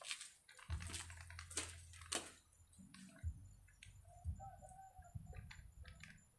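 Scattered light clicks and taps, some with a low thump, as hands tip a small packet of fungal powder into the mouth of a plastic bottle.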